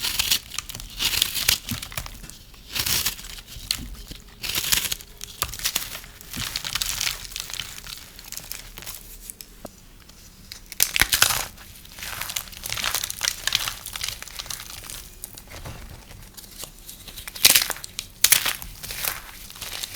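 Dry soap being cut with a knife: crisp, crackly cutting strokes that come in irregular bursts every second or two.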